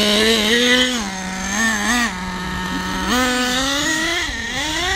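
Small engine of the Tornado S30 being broken in, running with throttle blips. Its pitch jumps up and drops back twice in the first two seconds, then rises and falls again over a longer stretch near the end.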